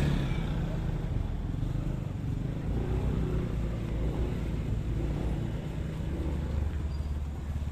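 Small motorcycle engine running at low speed, loudest at the start and then lower and steady.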